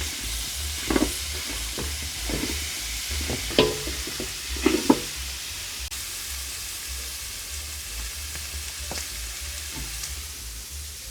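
Food frying in a hot pan with a steady sizzle, while a utensil stirs it. Several knocks and scrapes come against the pan in the first half, then only a few later.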